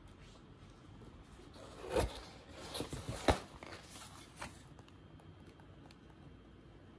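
A few short rustles and scrapes of tissue paper and cardboard packaging over quiet room tone, loudest about three and a half seconds in.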